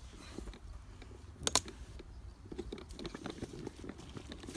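Wood campfire crackling with small irregular clicks and one sharp pop about a second and a half in.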